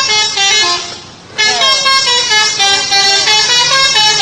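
Bus "telolet" musical horn playing a quick tune of short stepped notes, breaking off briefly about a second in before starting up again.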